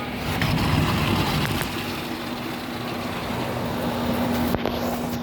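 Steady machine hum, one constant low tone over an even background rush.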